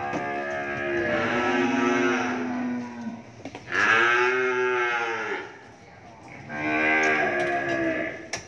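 Cattle mooing: three long moos in a row, each lasting one and a half to three seconds.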